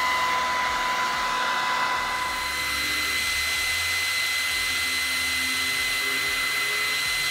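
Handheld hair dryer blowing steadily: a rush of air with a steady whine from its motor. It is drying lace-wig glue at the hairline until the glue turns tacky.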